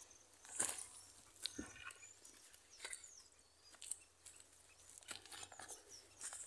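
Faint footsteps crunching on dry grass and leaf litter, one scattered step about every second, with a few faint bird chirps high above them.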